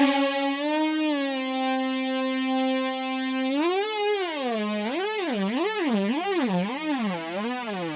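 Music: a lone synthesizer lead tone with no drums or bass. It holds one pitch, then from about halfway through wobbles up and down in pitch about twice a second, the swings growing wider.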